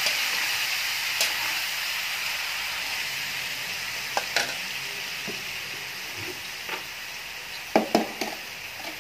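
Squid pieces sizzling in a hot steel wok, the sizzle slowly dying down, while a metal utensil stirs them, clinking and scraping against the wok about a second in, twice around four seconds in, and several times near the end, where the clinks are loudest.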